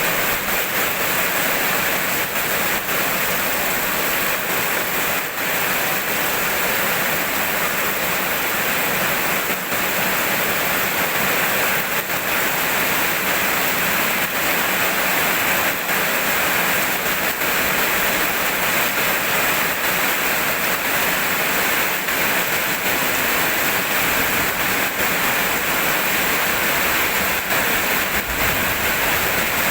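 Steady heavy rain falling, a dense even hiss with faint scattered drop taps and no thunder.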